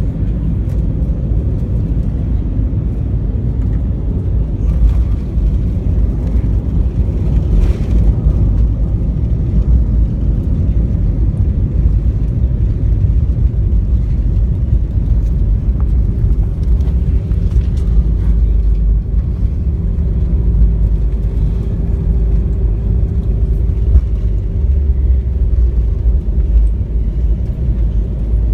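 Airliner cabin noise during landing: a loud, steady low rumble of engines and airflow heard from inside the plane. A steady hum joins in a little past halfway and fades out near the end.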